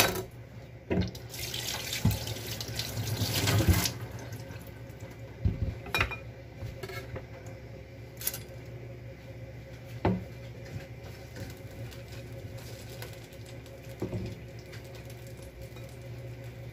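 A kitchen tap runs for about three seconds, swelling and then shut off. After that come a few scattered knocks of kitchen utensils over a steady low hum.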